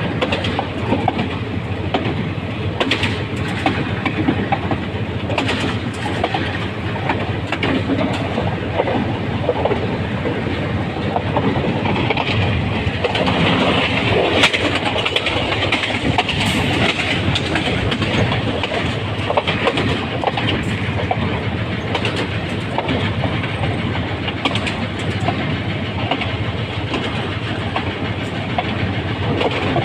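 Locomotive on the move, its steady running noise heard from the cab, with irregular clicking of the wheels over rail joints. The running noise grows louder and sharper for a few seconds in the middle.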